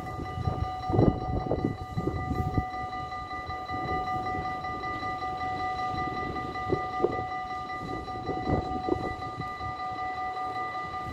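Dutch automatic half-barrier level crossing's warning bells ringing steadily while the barriers are down, a constant high, multi-toned ding. Under it is a low, uneven rumbling noise, loudest in the first couple of seconds.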